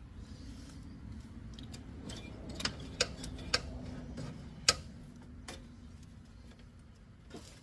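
A handful of sharp, irregular metallic clicks and taps from hand tools working loose the blade-engagement cable of a riding lawnmower, over a low steady hum.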